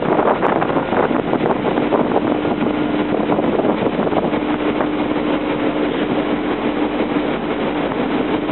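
Steady industrial rumble and wind noise heard from high up on a container crane, with a low steady hum that comes in about a second and a half in.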